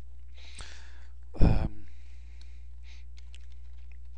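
Keystrokes on a computer keyboard as a word is typed into a web form, over a steady low electrical hum. About a second and a half in, a short, loud mouth noise close to the microphone stands out above the typing.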